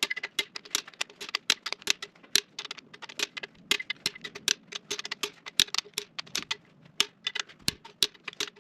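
Ratchet wrench clicking rapidly and unevenly as the head stud nuts on a 12-valve Cummins cylinder head are run down and torqued.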